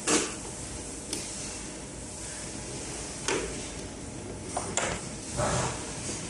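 Parts being handled during disassembly: about six short, sharp clicks and knocks, the loudest right at the start and a double click near five seconds, over a steady hiss.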